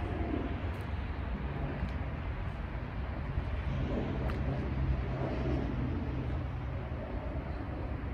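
Outdoor ambience of distant motor traffic: a steady low rumble, with a low engine hum holding from about a second and a half in until near the end.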